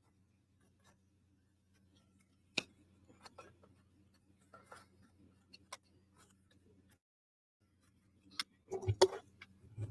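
Light clicks and taps of small wooden puzzle-box pieces being handled and fitted together, sparse at first with a busier run of clicks near the end. A faint steady electrical hum lies underneath.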